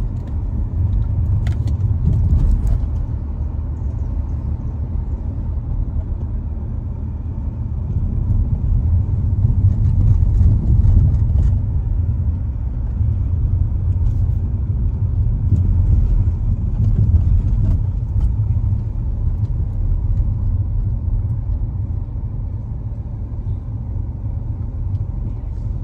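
Steady low rumble of a car driving slowly along a street, engine and tyre noise heard from inside the car, swelling a little now and then.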